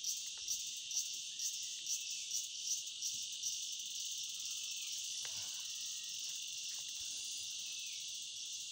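Steady, high-pitched chirring chorus of forest insects such as crickets, with a faster pulsing call above it that fades out about halfway through.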